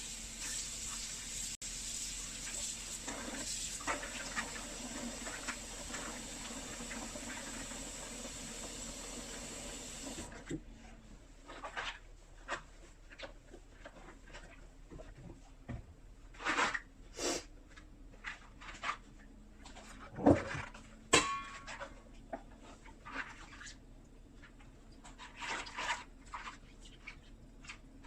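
Running tap water hissing steadily, then shut off suddenly about ten seconds in. After that come scattered clicks and knocks, with a few louder ones.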